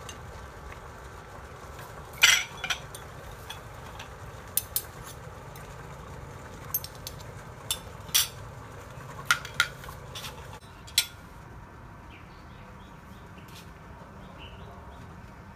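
Utensils clinking and knocking against dishes, about a dozen separate clinks, some with a short ring, over a steady low background hum; the clinks stop about eleven seconds in.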